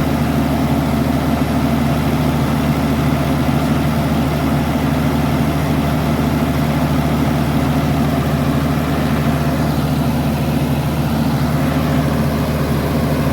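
Komatsu D85SS bulldozer's diesel engine idling steadily, with a constant low drone and no change in speed, running after its engine oil has been changed.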